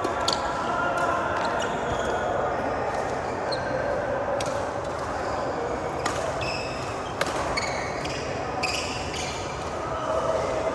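Badminton play: several sharp racket hits on the shuttlecock a second or more apart, and short squeaks of shoes on the court, over a background of chattering voices.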